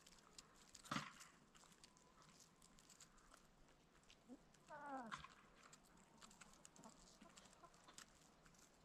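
Chickens in a coop, calling quietly against faint ticks and scratches. There is one sharp squawk about a second in, and a longer call that falls in pitch about five seconds in.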